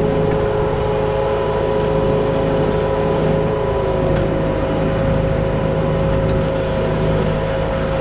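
ArmaTrac 1104 Lux tractor's diesel engine running steadily under load while pulling an inter-row cultivator, with a steady whine over it.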